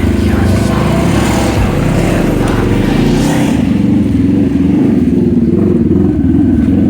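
An off-road vehicle engine running at a steady throttle while driving a trail. Rattling and rough-ground noise fill the first few seconds and ease off about halfway, leaving the engine's steady drone.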